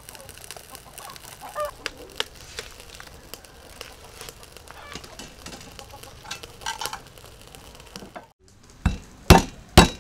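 A cleaver striking garlic cloves on a wooden chopping block: three heavy chops in the last second and a half, the loudest sounds. Before them, small crackles and clicks from a wood fire under a steaming pot, with chickens clucking in the background.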